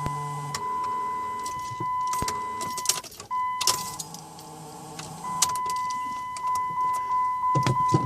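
Dodge Grand Caravan cabin during a failed start attempt: a steady, high electronic warning tone sounds on and off among sharp clicks from keys and controls. Near the end there is a short, rough low rumble.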